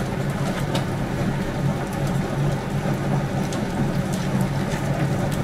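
Commercial spiral dough mixer running, its motor giving a steady low hum as the spiral hook kneads bread dough in the steel bowl, with faint irregular ticks over it.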